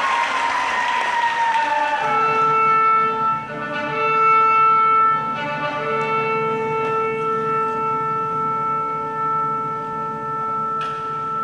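Applause dies away over the first couple of seconds as slow instrumental music begins over the arena loudspeakers. The music moves in long, held notes.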